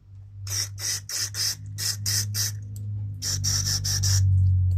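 Aerosol spray can being fired into a small-engine carburetor to clean it out: about a dozen short hissing bursts in two quick runs with a brief pause between them. A steady low hum runs underneath.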